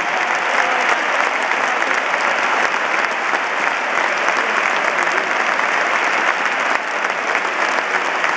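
Football stadium crowd applauding steadily in a standing ovation: dense, unbroken clapping.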